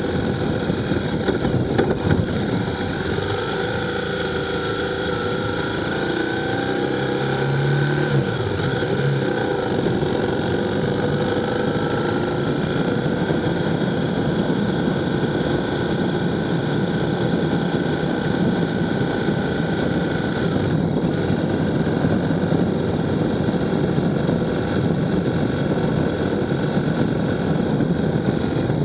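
Steady rush of wind and road noise on an action camera's microphone while riding along a street. A faint tone rises and falls between about three and ten seconds in.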